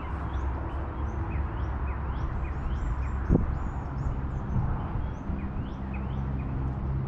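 Small birds chirping repeatedly in short calls over a steady low background rumble, with a single sharp knock about three seconds in.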